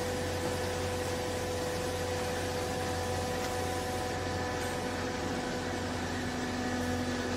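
Vertical hydraulic clothes baler's electric motor and hydraulic pump running steadily with a mechanical hum made of several steady tones, while the ram presses a bundle of cloth; a lower tone joins about five seconds in.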